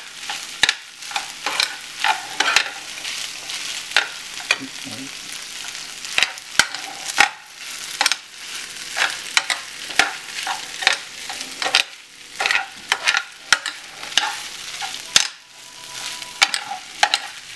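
Metal spoon stirring and scraping chicken fried rice around a skillet, with irregular clinks and scrapes against the pan over a steady sizzle as the rice fries until crisp.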